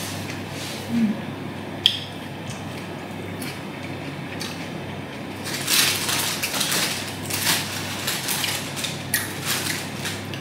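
Eating and handling food at a table: a sharp click about two seconds in, then a crackling, crunchy rustle from about halfway with scattered clicks after it.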